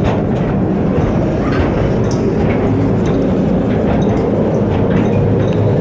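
Calico Mine ride's train running steadily through its tunnel, a loud, even rumble of wheels on the track, heard from aboard one of the cars.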